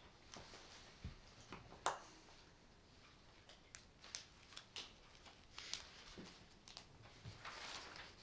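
Quiet room tone with faint paper rustling and scattered small clicks and taps as printed pages are handled and turned; one sharper click about two seconds in.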